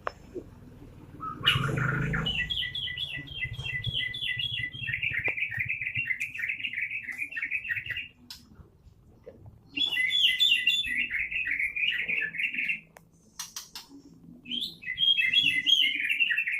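A murai songbird (Copsychus) singing in three long bouts of fast, rapidly repeated high chirps, with short pauses between the bouts.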